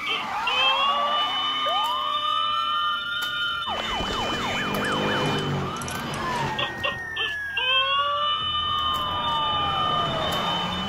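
Siren-like wailing: tones that sweep up and down, break into a fast warbling yelp about four seconds in, and end on a long falling glide.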